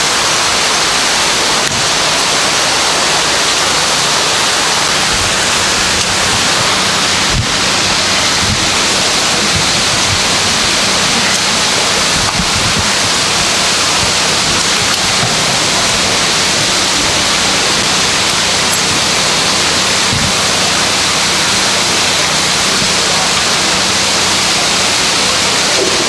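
Loud, steady hiss-like noise, even and unbroken, with a faint low hum beneath it and a few faint knocks.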